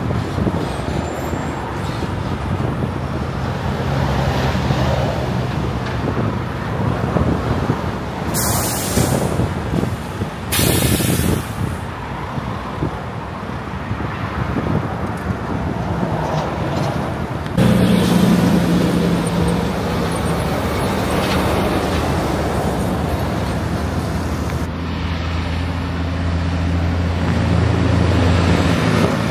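Diesel semi-trucks passing on a road, engines running steadily under road noise, with two short air-brake hisses about a third of the way through. A louder truck engine comes in just past the middle.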